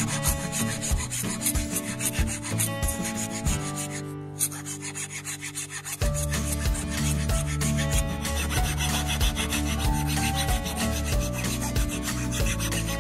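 Flat metal file rasping across the edge of a small piece of wood in repeated back-and-forth strokes, with a pause of about two seconds roughly four seconds in.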